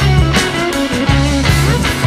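Background rock music with guitar over a low bass line and a regular beat.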